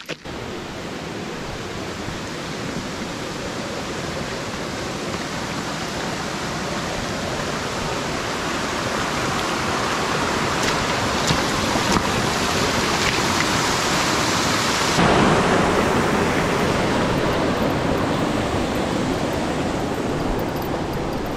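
Steady rush of running water, growing slowly louder over the first fifteen seconds or so.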